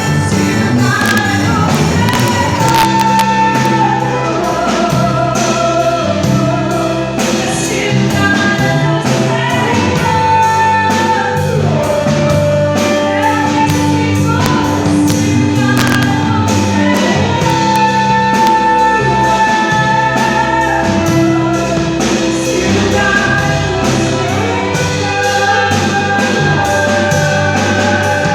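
A gospel band rehearsing a song: drums and bass under a sung melody with long held notes.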